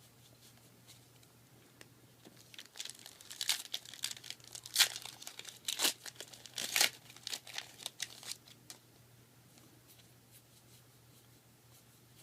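Foil wrapper of a Yu-Gi-Oh booster pack being torn open and crinkled, a flurry of sharp crackles starting a couple of seconds in and dying away after about six seconds.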